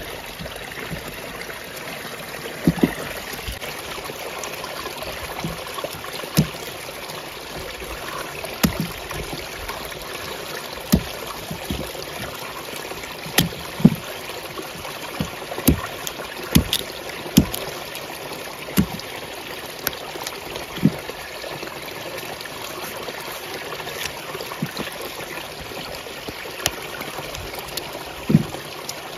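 Steady trickle of running water, with irregular sharp knocks of a knife chopping into cassava roots as they are cut and peeled.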